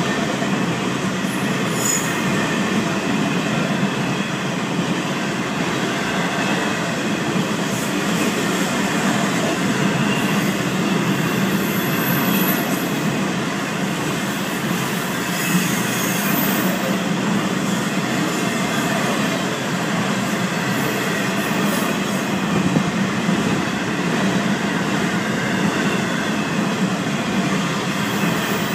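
Florida East Coast freight train cars rolling steadily past a grade crossing: a continuous rumble of steel wheels on rail.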